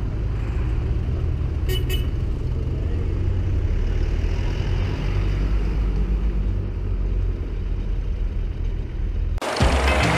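Vintage tractors and a flatbed lorry driving past with their engines running, a steady low rumble, with two short toots about two seconds in. Near the end it cuts suddenly to background music.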